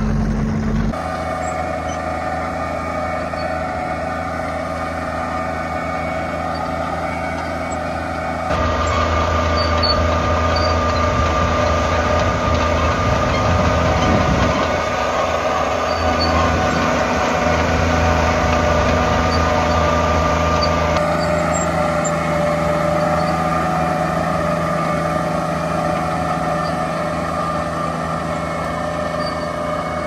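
Allis-Chalmers crawler tractors' GM Detroit Diesel two-stroke engines running steadily under load while pulling ploughs, with a steady whine over the engine note. The sound changes abruptly about a second in, again around eight seconds and around twenty-one seconds as it switches from one tractor to another.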